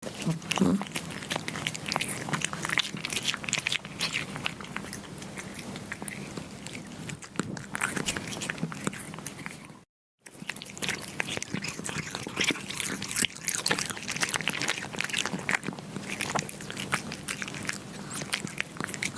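Kittens chewing and biting meat: a quick, uneven run of wet smacks and crunches. It stops dead for a moment about halfway through, then resumes.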